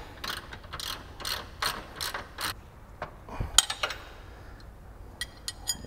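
Socket ratchet clicking through a run of strokes, about two clicks a second, as it tightens an 18 mm radius-rod mounting bolt. A single sharper metallic click follows about three and a half seconds in, then a few lighter quick clicks near the end.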